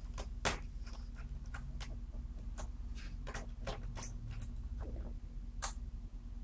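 Small irregular clicks and taps of a screwdriver and fingers handling the plastic underside of a Sony Vaio laptop, with the sharpest click about half a second in, over a low steady hum.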